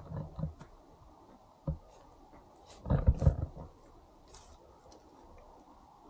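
Wind buffeting the microphone in low rumbling gusts, with a short thump a little before the middle and the loudest gust about three seconds in.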